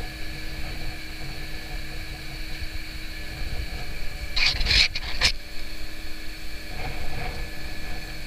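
Steady machinery hum with several high whining tones over a low rumble, while the crane lowers its load. About halfway through comes a short cluster of loud scraping or hissing noise, with a fainter one a couple of seconds later.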